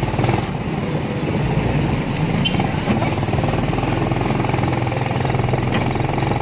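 Motorcycle engine of a sidecar tricycle running steadily while riding, heard from inside the sidecar along with road noise.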